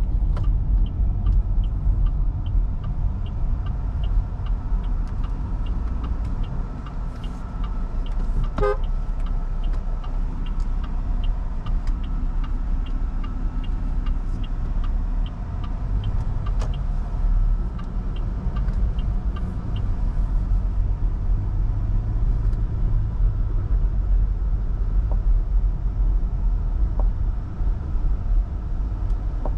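Steady low road and engine rumble of the MG Hector Plus 1.5-litre turbo petrol SUV driving along. For most of the first twenty seconds there is a fast, even ticking of about three a second, and a brief horn toot comes about nine seconds in.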